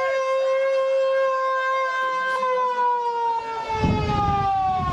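A siren holds one steady tone, then begins to fall slowly in pitch about two and a half seconds in as it winds down. A low rumble comes in near the end.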